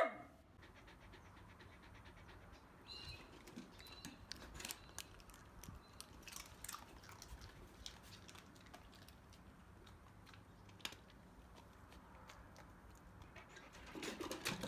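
The tail of a single dog bark right at the start, then faint scattered clicks and small rustling noises from a whippet moving about on a wooden deck, with a slightly louder shuffle near the end as it walks off.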